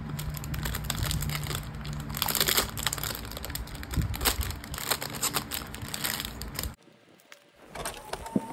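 Clear plastic packaging crinkling and crackling as it is pulled off a mini three-ring binder and its paper refills. The crinkling stops abruptly about seven seconds in, leaving only quieter handling.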